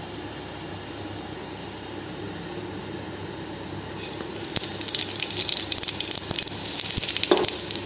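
Cumin seeds tipped into hot oil in a steel wok, sizzling and crackling. Before that there is only a steady low hiss; the crackling starts about four seconds in and keeps going.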